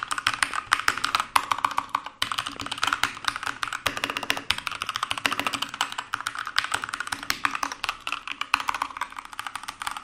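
Keychron K2 mechanical keyboard typed on hard and fast: a dense, rapid clatter of keystrokes, with a brief break about two seconds in.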